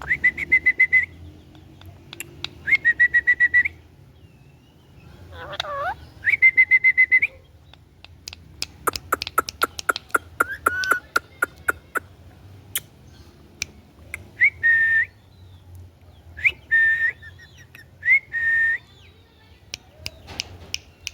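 Indian ringneck parakeet whistling: a series of steady, buzzy high whistled notes about a second long, one falling glide, and a run of rapid clicks in the middle, then shorter whistles near the end.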